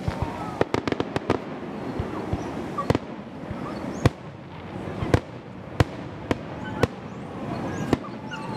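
Fireworks display: aerial shells bursting with sharp bangs, a quick run of cracks about a second in, then single bangs roughly once a second.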